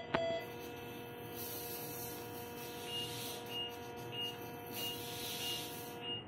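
Operating-room equipment during surgery: a steady electronic tone sounds throughout and cuts off suddenly near the end, while short high beeps repeat about every 0.6 s from about three seconds in, over a faint hiss.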